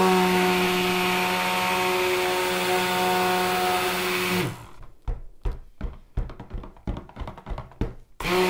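Stick blender running steadily in a plastic jug of cold-process soap batter (oils and lye solution), mixing it toward trace. It cuts off about four and a half seconds in. A run of irregular low knocks follows, and the blender starts up again near the end.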